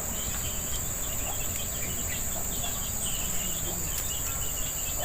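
Steady high-pitched insect chorus, a continuous shrill drone with faint scattered chirps mixed in.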